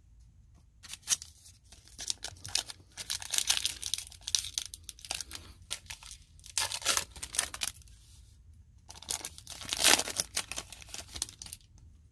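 Foil wrapper of a trading-card pack being torn open and crinkled by hand, in irregular crackly bursts with brief pauses, the loudest tear near the end.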